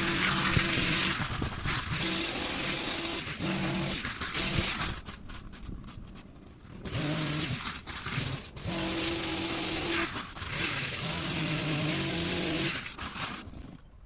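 Small petrol engine of a garden power tool such as a strimmer, revving in bursts of a second or two as it cuts. It drops to a low idle for a moment about five seconds in, revs up again several times, then falls away near the end.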